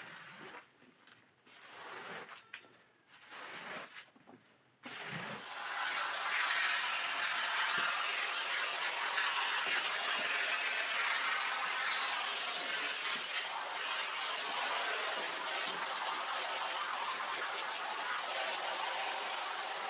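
A long-handled scraper is pushed across a wet rug in several short scraping strokes. About five seconds in, a hose spray gun starts jetting water onto the rug's pile with a steady hiss that holds on.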